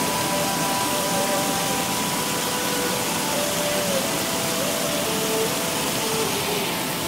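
Floodwater rushing over a concrete weir spillway: a steady, loud wash of white water. A faint tune of thin held tones sits over it.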